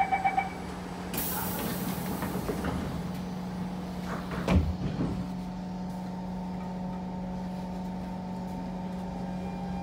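Siemens C651 train's door-closing beeps end, then a hiss as the sliding doors close, shutting with a thud about four and a half seconds in. A steady electrical hum runs underneath while the train stands at the platform.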